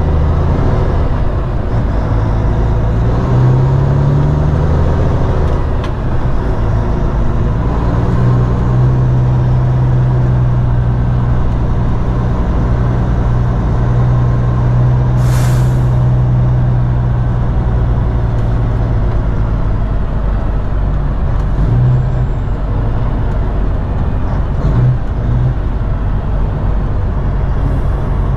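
Road train prime mover's diesel engine running at low speed, its pitch dropping and rising several times and holding steady for about ten seconds in the middle. A short, sharp hiss of air sounds about halfway through.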